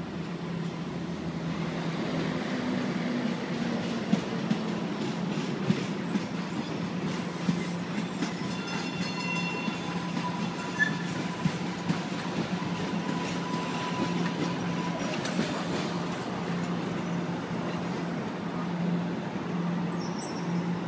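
MBTA Green Line light-rail train rolling past, its wheels clacking sharply over rail joints about half a dozen times. From about eight seconds in, a steady high wheel squeal rings for several seconds, over a steady low hum.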